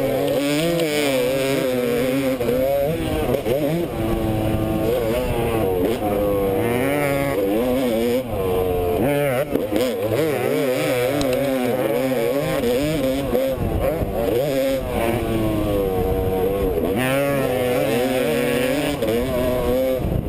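Motocross dirt bike engine revving hard and easing off over and over as it is ridden through corners and down a straight, heard close-up from the rider's helmet.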